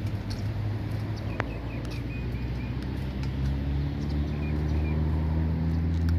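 A motor vehicle's engine running with a low hum that grows louder near the end. A short run of high bird chirps comes about one and a half to three and a half seconds in.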